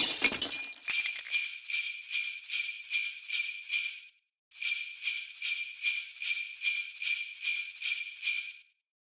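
Sleigh bells shaken in a steady rhythm, about two shakes a second, in two runs of a few seconds each with a brief break between, then stopping shortly before the end. A loud sudden hit with a short ringing tail comes right at the start.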